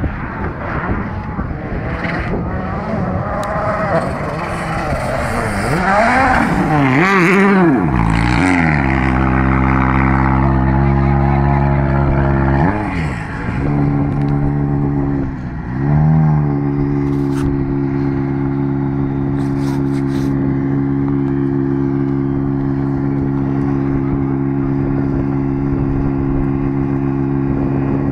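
VW Polo R WRC rally car's 1.6-litre turbocharged four-cylinder engine revving, its pitch swinging rapidly up and down as the car comes in. It then settles into a steady idle, blipped twice near the middle.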